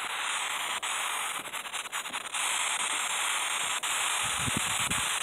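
Steady static hiss from a ghost-hunting spirit box sweeping through radio stations, with a quick run of clicks about a second and a half in and a few low thuds near the end.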